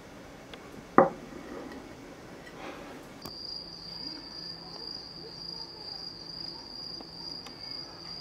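A plate knocks once onto a wooden table about a second in. From about three seconds in, an insect calls outdoors in one steady high-pitched tone.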